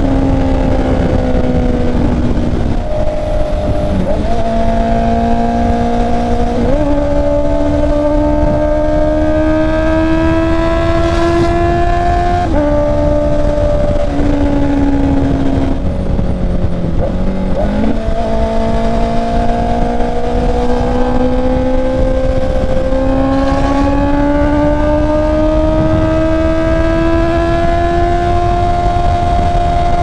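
Honda CB650R's inline-four engine running under load at highway speed. Its note climbs and then jumps suddenly in pitch several times as gears change, then rises slowly through the second half. Heavy wind rush on the microphone underneath.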